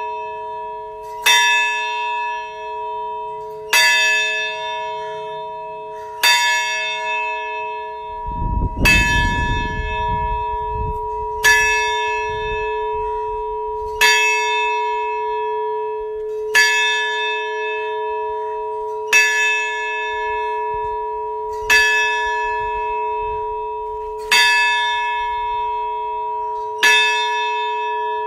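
A large bell struck slowly and evenly, about once every two and a half seconds, each stroke ringing on into the next. A brief low rumble comes about nine seconds in.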